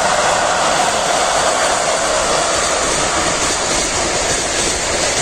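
A Czech-built two-section ChS7 electric locomotive passing at speed with a passenger train, then its carriages rolling by. A steady rushing noise with a whine that drops slightly in pitch as the locomotive goes past.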